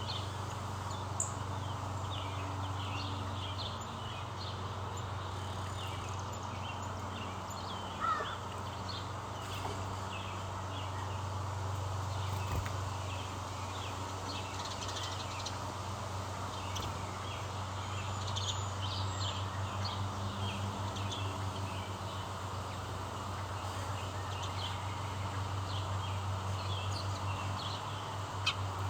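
Small birds chirping and calling in short, scattered notes over a steady low hum.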